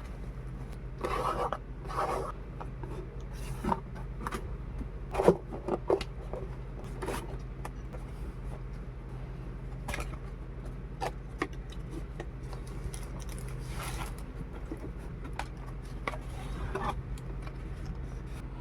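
Hands handling a boxed action figure and its packaging: irregular rubbing and scraping with scattered clicks and knocks, the sharpest about five seconds in, over a steady low hum.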